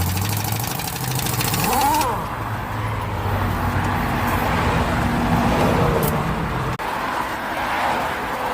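Freeway traffic passing a few feet away: steady tire and engine noise over a low engine hum, with one vehicle's pitch dropping as it goes by about two seconds in. A rapid high rattle runs through the first two seconds.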